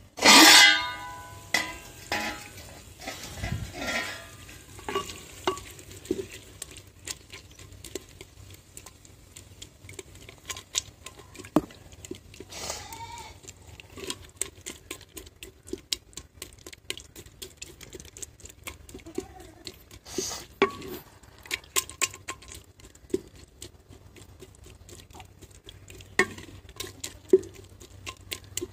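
A stainless steel plate used as a lid is lifted off a clay pot with a loud ringing clang about half a second in. Then a wooden ladle stirs dal in the clay pot, with irregular knocks and scrapes against the pot's sides.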